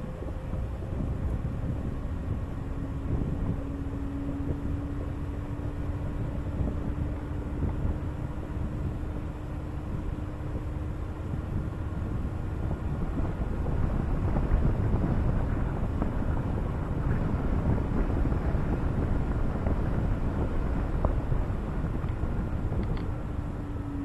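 Car driving along a paved road, heard from a roof-mounted camera: steady wind rush and tyre and road noise, with a steady low hum through much of it.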